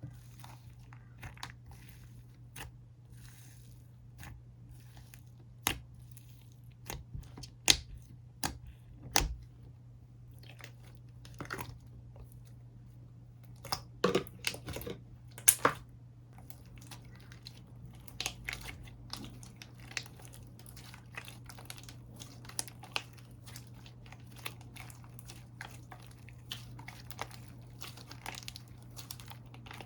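Slime being squished, stretched and poked by hand: an irregular run of sticky clicks, pops and crackles, loudest around eight seconds in and again around fourteen to sixteen seconds.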